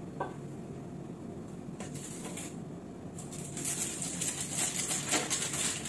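Aluminium foil being pulled out and crinkled, a dense crackling that starts about three seconds in and grows louder.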